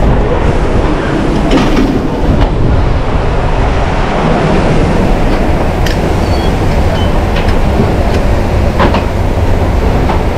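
Steady low rumbling din of a busy restaurant kitchen line working at a wood-fired hearth. A few sharp metallic clinks of pans and utensils are heard during it.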